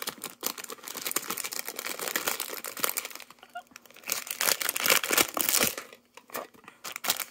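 Clear cellophane wrapping crinkling and tearing as it is pulled off a small container, in two bursts of crackling with a short lull between; it goes much quieter about six seconds in.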